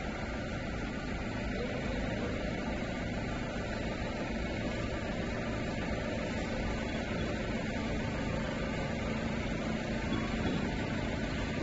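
Steady background noise: a low hum with hiss, unchanging, with no distinct knocks or other events.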